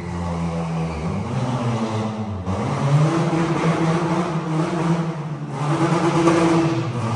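Engines of a twin-engine Honda Civic hatch running under throttle. The revs rise and fall a few times, with a steadier stretch in the middle.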